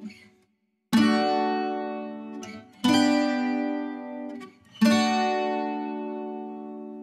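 Background music: a plucked string instrument strikes three chords about two seconds apart, each left to ring out and fade.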